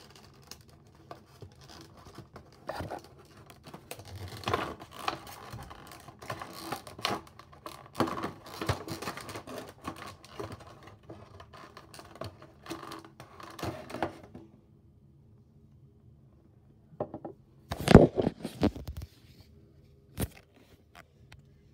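Packaging of a diecast model airplane being worked free by hand: about fourteen seconds of irregular scratching, scraping and tearing. After a short lull come a few loud knocks and bumps near the end.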